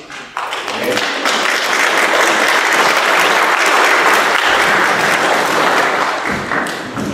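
Congregation applauding. The applause starts suddenly, holds steady, then tapers off near the end.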